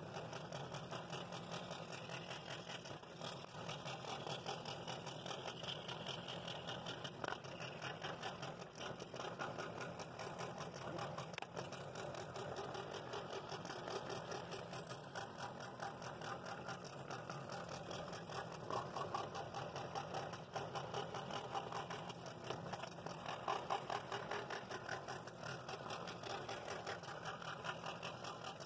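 Scroll saw running steadily with a number 9 blade, cutting through 3/4-inch walnut, the blade stroking rapidly up and down through the wood.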